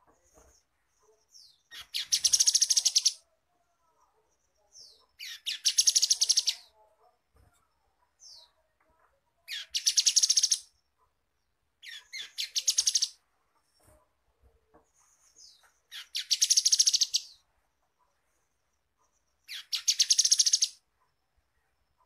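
Grey-headed canary-flycatcher singing: six short, high-pitched trilled phrases a few seconds apart. Each phrase opens with a brief rising note.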